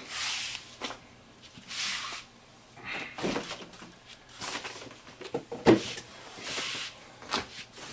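A refrigerator door opened and shut as a container is put away: a few light knocks amid soft rustling and handling noises.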